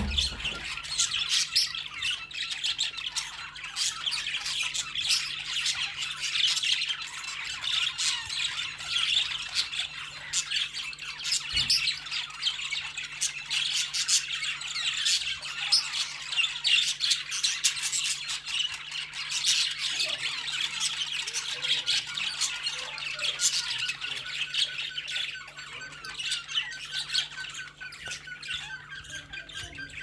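Cockatiels chirping and squawking in a rapid, nearly unbroken stream of short high calls. Over the last several seconds a thin held note rises slowly in pitch beneath them.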